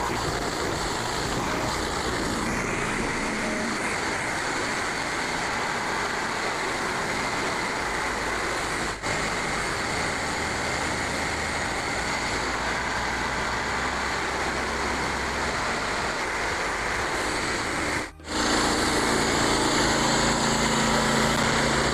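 Portable band sawmill running steadily, its blade cutting through a white oak board. After a short break near the end, the sawmill's engine hum carries a clear steady pitch.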